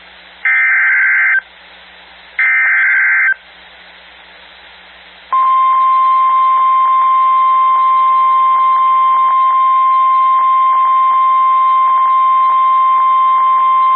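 Emergency Alert System broadcast over NOAA Weather Radio. Two short buzzy SAME header data bursts about a second apart come over radio hiss. A couple of seconds later the steady single-pitched 1050 Hz weather radio warning alarm tone sounds for about nine seconds, announcing a live warning broadcast.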